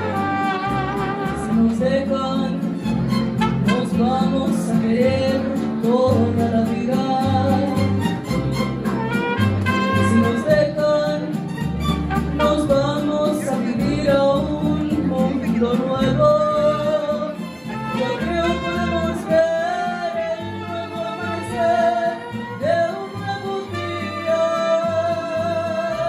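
A mariachi band playing: violins and trumpets carrying the melody over strummed vihuela and guitar, with a guitarrón bass.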